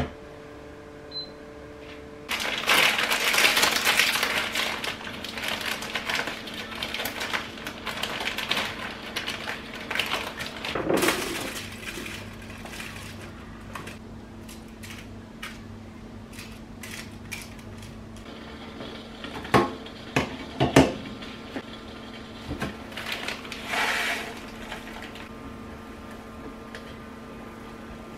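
Kitchen cooking sounds: several seconds of loud rustling and crackling in the first half, then scattered clinks and taps of utensils on a stainless steel pot and a foil-lined baking tray, over a steady low hum.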